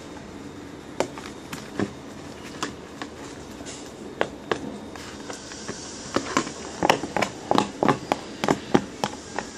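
Glue-and-soap slime being stirred in a clear plastic box: irregular clicks and taps of the mixing utensil and the tilted box against the plastic and the table. The taps are sparse at first and come thick and fast over the last few seconds.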